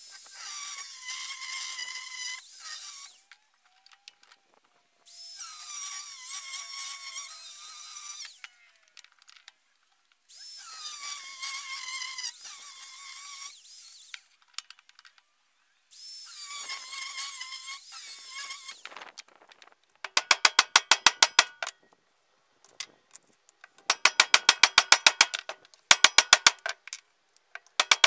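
Angle grinder's cut-off disc cutting lengthwise through a steel pipe, in four whining bursts of about three seconds each. After that come fast runs of hammer blows on steel as the half pipe is beaten flat on a steel stump.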